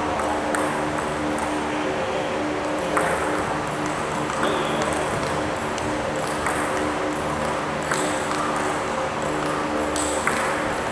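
Table tennis balls clicking at irregular intervals, one every second or two, as they bounce on tables and paddles, over a steady hum.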